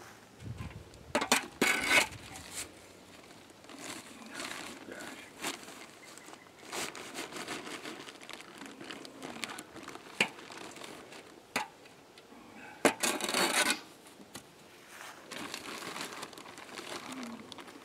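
A shovel scraping and scooping potting-soil mix in a galvanized metal washtub, with a plastic bag of cow manure rustling and crinkling. The noise comes in separate bursts, the loudest about two-thirds of the way through.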